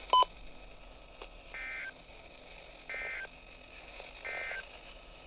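Emergency Alert System end-of-message tones from a NOAA Weather Radio broadcast: three short data bursts, each about a third of a second, a little over a second apart, marking the end of the warning. A sharp click sounds just after the start, over faint radio hiss.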